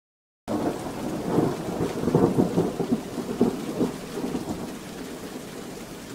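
Recorded thunderstorm sound effect: rain and a rolling rumble of thunder cut in abruptly about half a second in. The thunder swells loudest over the next few seconds, then eases while the rain keeps falling.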